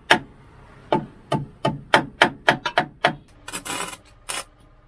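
A rapid, irregular series of sharp knocks, about nine in three seconds, followed by a short rush of noise and one more knock.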